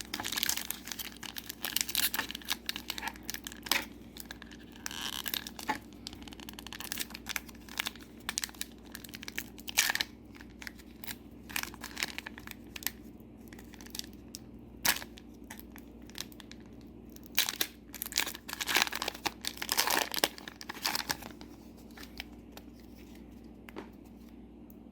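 Trading card booster pack wrapper being torn open and crinkled, a dense run of irregular crackling and rustling that thins out over the last few seconds.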